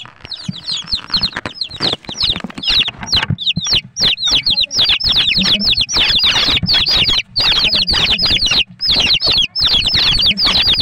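A bucketful of about eight or nine chicks peeping loudly and without pause. The calls are quick, high, falling peeps, many each second and overlapping, with some scuffling of the birds against the plastic bucket underneath.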